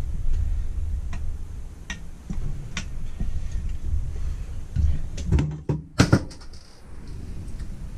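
Light metallic clicks and taps of a screwdriver and small parts on a Holley 390 cfm four-barrel carburettor being assembled. A few louder knocks follow at about five seconds, then one sharp knock near six seconds as the carburettor body is handled on the wooden bench, over a low steady hum.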